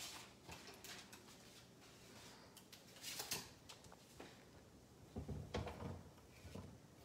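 Quiet kitchen handling noise: scattered light knocks and clicks of a plastic cutting board and knife being moved about. A busier run of knocks about five seconds in, as chopped zucchini pieces are scraped off the board into a skillet.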